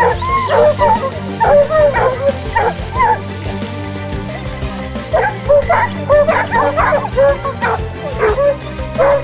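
A pack of scent hounds giving tongue on a wild boar's trail: repeated high yelps and bays that rise and fall, coming in several bunches, the excited voice of hounds on a hot scent. Background music runs underneath.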